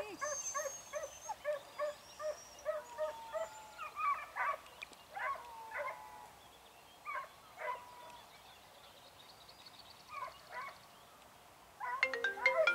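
Fox-hunting dog giving tongue far off: a fast run of short high yelps, about three a second, then scattered yelps with pauses. A phone ringtone starts near the end.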